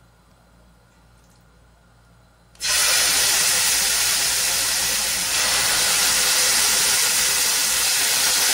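Skewers of masala-marinated mutton liver sizzling in hot oil as they are laid on a frying pan. The sizzle starts suddenly about two and a half seconds in, then holds steady and gets slightly louder about halfway as more skewers go down.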